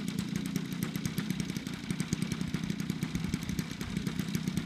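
DLE55 single-cylinder two-stroke petrol engine of an RC aerobatic plane running at low, steady throttle, with an even firing beat.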